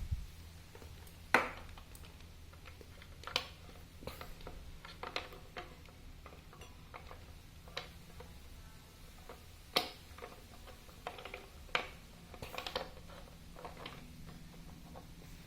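Irregular light clicks and knocks, as of objects being handled and set down, over a faint steady low hum.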